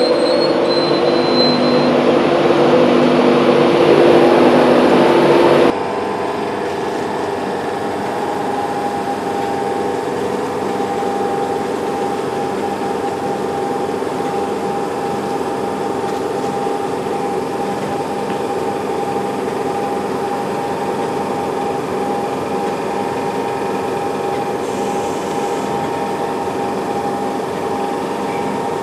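An LNER InterCity 225's Mk4 coaches roll past with a thin, high wheel squeal. About six seconds in this cuts to a steady hum and whine from a Class 91 electric locomotive standing close by at the platform.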